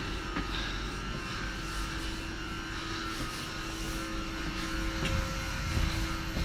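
Steady rumble and hum inside a passenger train carriage, with a faint constant tone over the running noise.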